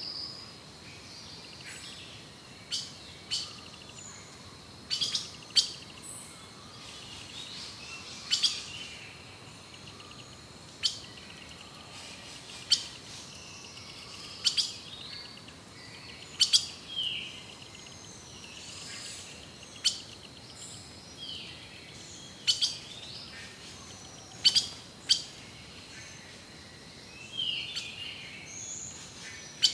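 Birds calling in a forest: short, sharp chips every second or two, some in quick pairs, with softer chirps and whistled glides between them over a faint steady high tone.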